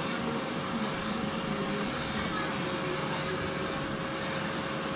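Hand-held hair dryer blowing steadily: an even rush of air with a faint steady whine.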